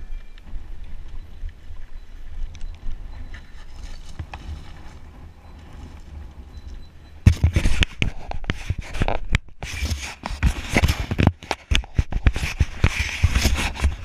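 Wind rumbling on the microphone, then from about seven seconds in the loud, dense clatter of a mountain bike descending a loose rocky trail: tyres crunching over gravel and stones and the bike rattling over the bumps, with a brief lull partway.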